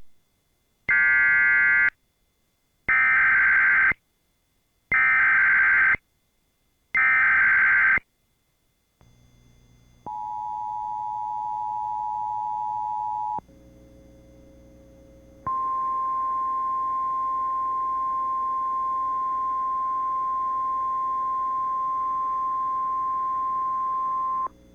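Emergency Alert System header: four short screeching bursts of digital data, each about a second long, then the two-tone EAS attention signal for about three seconds. After a short quieter hum comes a steady single-pitched weather-radio alert tone for about nine seconds, which cuts off suddenly.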